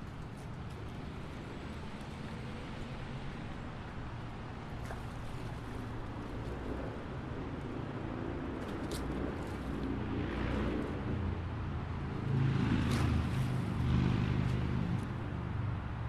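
Steady low rumble of expressway traffic, swelling louder about twelve seconds in as vehicles pass closer.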